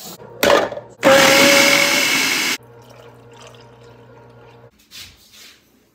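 Countertop blender with a glass jar running: a brief pulse, then a loud steady run of about a second and a half that cuts off sharply.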